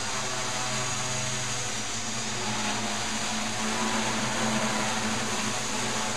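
Homebuilt quadcopter's electric motors and propellers running steadily as it hovers, a droning hum with its pitch wavering slightly.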